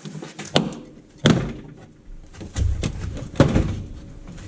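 Knocks and thuds of a car's plastic front bumper cover being pulled free and handled: a sharp knock about half a second in, a louder thud just after a second, a low rumble, then another loud thud about three and a half seconds in.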